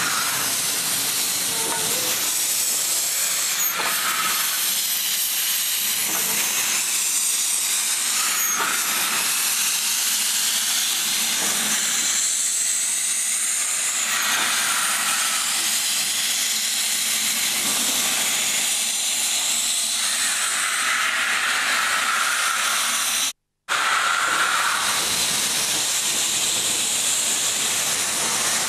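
Steady steam hiss from a Rhodesia Railways 16A class Garratt standing in steam, swelling and easing now and then. The sound cuts out briefly about 23 seconds in.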